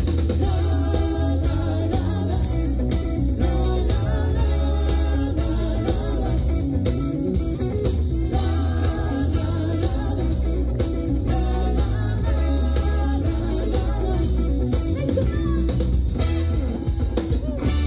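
Live Latin band music with a lead singer, electric guitar, bass and drum kit, played loud with a steady beat.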